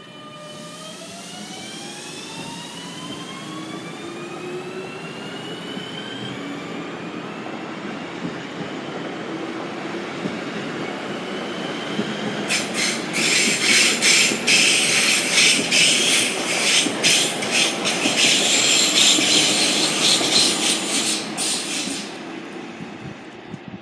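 Regional multiple-unit train pulling away: its drive whines in several tones that rise in pitch as it speeds up. About halfway through, loud screeching and crackling from the wheels sets in for several seconds before the train fades.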